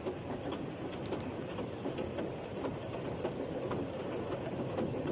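Passenger train running, heard from inside the carriage: a steady rumble with the wheels clicking irregularly over rail joints.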